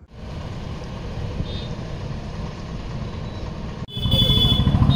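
Outdoor street noise, a steady low rumble of vehicle traffic. Near the end it cuts suddenly to a louder, rapidly throbbing engine-like rumble with a thin high tone over it.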